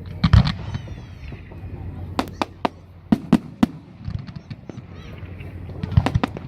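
Fireworks going off: an irregular string of sharp bangs and cracks, with a loud bang near the start and clusters of quicker reports a couple of seconds in and again near the end.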